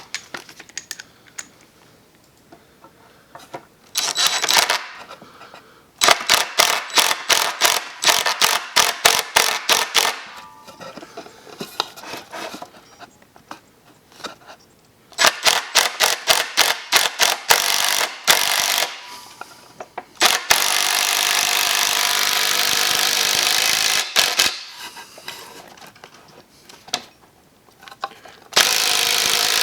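Cordless power tool driving screws into the wooden frame: several runs of rapid, rhythmic clicking, and a steady motor run of a few seconds past the middle and again near the end.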